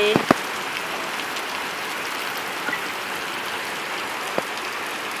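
Heavy rain falling steadily, a dense even hiss of a downpour, with a couple of sharp taps: one at the start, one about four seconds in.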